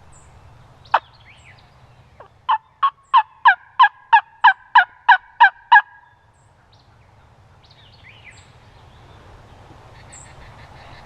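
A run of about eleven turkey yelps, evenly spaced over some three seconds, each note breaking between a lower and a higher tone. A single sharp click comes about a second before them.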